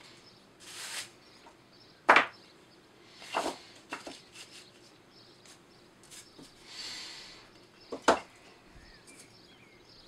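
Short lengths of planed wood being picked up and set down on a workbench, clacking against the bench and each other in several separate knocks, the loudest about two seconds in and another sharp one near eight seconds, with softer sliding sounds between.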